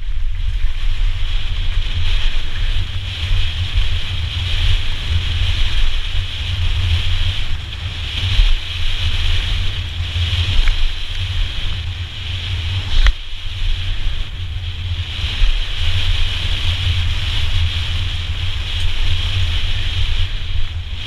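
Wind buffeting an action camera's microphone as a mountain bike runs fast down a dirt trail, with tyre rumble and a steady high hiss throughout. A sharp knock stands out about two-thirds of the way through, with a few fainter ones elsewhere.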